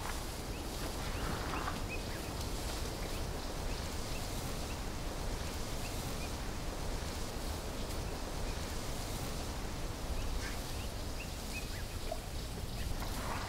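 Steady outdoor background noise with a low rumble, and faint short bird chirps scattered throughout.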